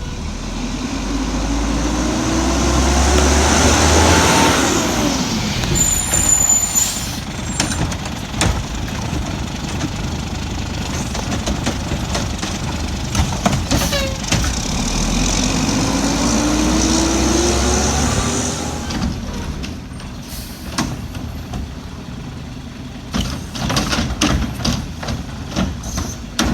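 Old Heil garbage truck's engine revving up twice, its pitch rising over a few seconds each time, with a short air-brake hiss about six seconds in.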